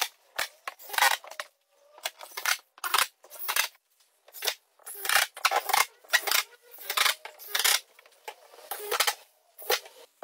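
Makita 18V cordless drill-driver driving screws into plasterboard one after another: more than a dozen short, quick whirring screw runs, each under half a second, spaced fairly evenly.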